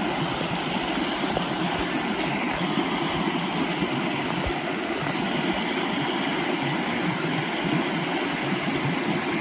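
Steady rushing of a shallow stream over stones.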